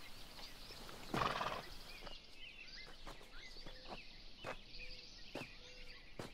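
Small birds chirping throughout, with a horse close by: a brief louder sound from the horse about a second in and a few scattered hoof knocks.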